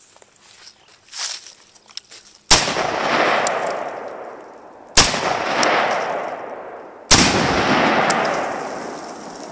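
Three single shots from a CETME G3-pattern .308 rifle, about two and a half seconds apart. Each crack is followed by a long rolling echo that fades over about two seconds.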